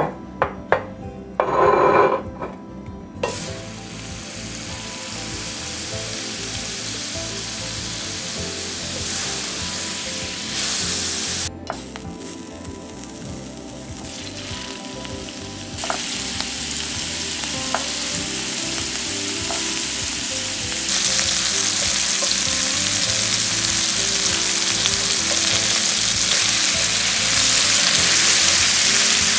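Meatballs and garlic frying in hot oil in a pan: a steady sizzle that sets in about three seconds in and grows louder in steps later on, after a few clinks and knocks at the start.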